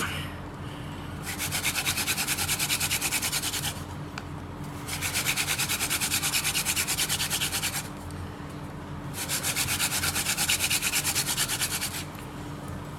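Hand-drill fire by friction: a wooden spindle spun fast between the palms, grinding back and forth in the notch of a hearth board of the same wood. Three runs of quick rubbing, each two to three seconds long, with short pauses between as the hands return to the top of the spindle; these are the last runs, with the board smoking and an ember about to form.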